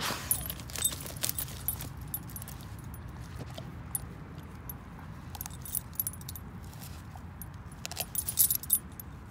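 Metal leash snap and collar ring jingling in irregular bursts of clinks as a dog digs and noses in dry grass and leaves, with rustling of the grass. The clinking is busiest at the start and loudest about eight seconds in.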